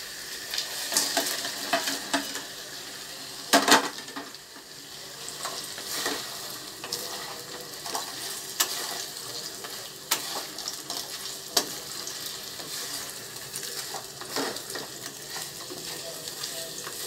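Soy-sauce mixture sizzling in a frying pan as fried potato pieces are stirred into it with a wooden spatula. Scrapes and knocks of the spatula against the pan run through the sizzle, the loudest about three and a half seconds in.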